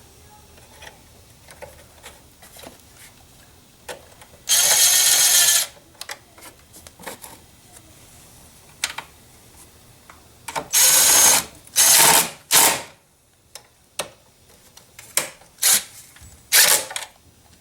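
Power tool with a socket running in five short bursts, tightening the battery hold-down bracket nuts, with small tool clicks and knocks in between.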